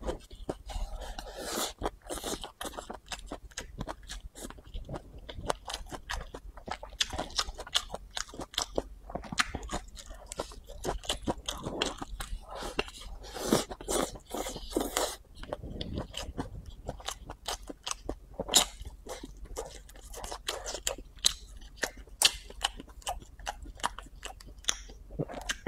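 A person eating rice noodles with chopsticks: slurping the noodles in and chewing them, a dense, uneven run of wet smacks and crunchy clicks.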